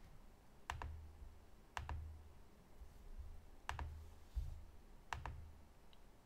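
Faint computer mouse clicks: four quick double clicks spread over a few seconds, each with a soft low thud on the desk.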